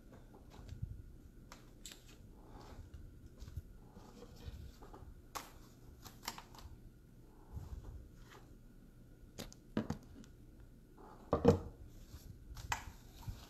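Scattered small clicks, taps and rustles of handling in a quiet small room, with one louder knock about eleven and a half seconds in.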